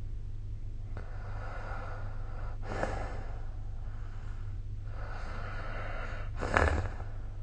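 A sleeping person snoring: two noisy breaths about three and a half seconds apart, the second louder and sharper, over a steady low hum.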